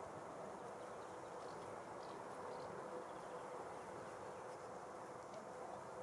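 Honeybees buzzing as they forage among lavender flowers: a faint, steady hum.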